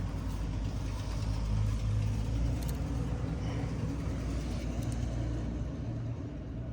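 A steady low rumble with a fainter rubbing hiss over it: a rag wiping out the inside of an ATV engine cylinder.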